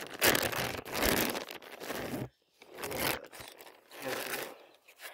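Rustling and crinkling handling noise in several irregular bursts, with a brief pause about halfway through.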